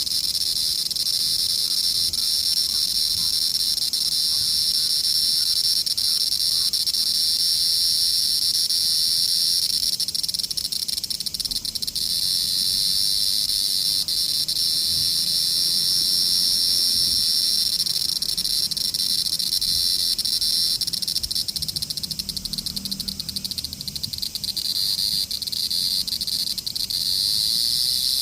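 Cicadas calling: a steady, unbroken high-pitched buzz that keeps going without a pause.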